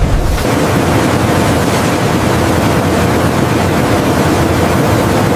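Industrial machinery running in a steady, rushing wash of noise, with a deep rumble that drops away about half a second in.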